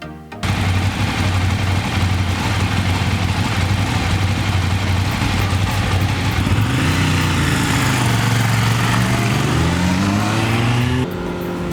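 Loud engine noise that cuts in abruptly, running with a steady low hum. From about halfway the engine's pitch climbs steadily as it accelerates, then breaks off sharply near the end into a steadier note.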